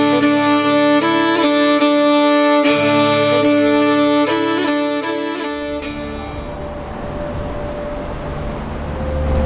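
Violin-led background music with long held notes for about the first five and a half seconds. Then comes a cut to the steady rush of fast, high-running river water heard from a kayak, with a low rumble building near the end.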